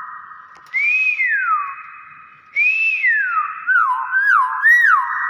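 Hill myna whistling: two clear notes that rise and then glide down, followed by three quick up-and-down warbles.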